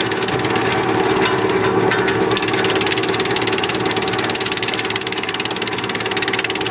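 216 drum wood chipper running: a steady hum under a rapid, even mechanical clatter, with a few sharper knocks in the first couple of seconds.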